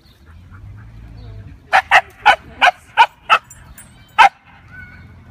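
A dog barking at another dog through a wire fence: a quick run of six sharp barks about a third of a second apart, then one more bark a second later.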